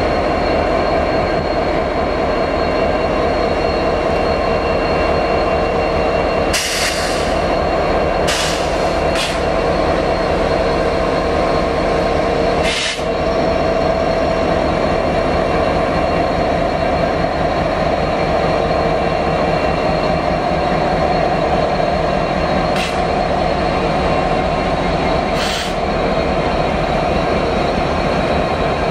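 Diesel locomotives passing close by, led by an EMD SD70ACu, their engines running with a steady, dense mechanical drone and a few steady tones over it. Several brief sharp clicks are heard, spaced seconds apart.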